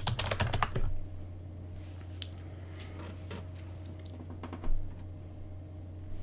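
Rapid typing on a computer keyboard for about the first second, then a few scattered key clicks over a steady low hum. A single dull thump about three-quarters of the way through is the loudest sound.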